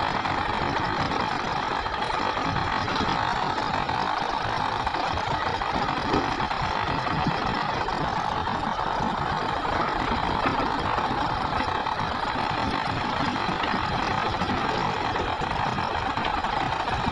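Heavy diesel engines of hydraulic excavators and a dump truck running steadily as the excavators dig and load ore.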